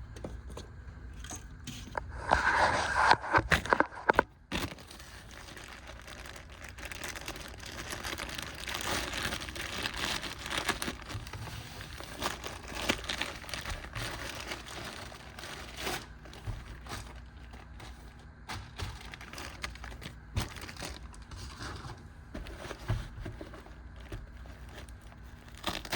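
Packaging being handled and unwrapped, crinkling and rustling, with the loudest rustling between about two and four seconds in, then lighter crackling and small clicks.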